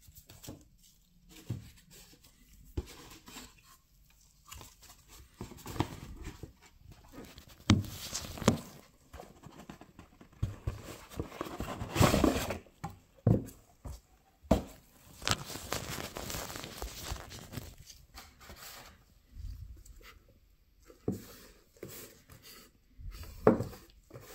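Cardboard boxes handled by hands in nitrile gloves: irregular knocks, taps and scrapes, with two longer rubbing, sliding stretches near the middle as the inner boxes are slid out of the outer box.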